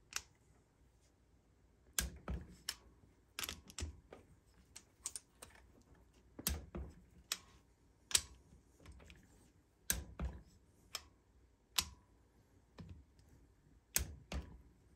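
Sharp metal clicks and taps from hand tools on the cylinder head fasteners of a Honda XR200 engine, as the nuts and bolts are snugged down in sequence. The clicks come irregularly, singly and in small clusters.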